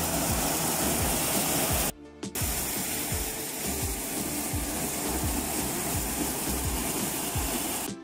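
Maize sheller (corn threshing machine) running, a steady rushing din of cobs being stripped with rapid low knocking underneath; the sound breaks off briefly about two seconds in.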